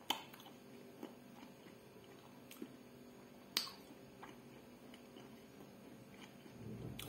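Quiet chewing of food with about half a dozen scattered sharp mouth clicks and smacks, the loudest about three and a half seconds in.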